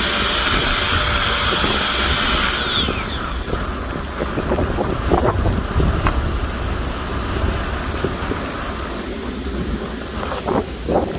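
Steady high hiss of a running machine that winds down with a falling whine about three seconds in, followed by low rumbling noise and scattered knocks and clanks.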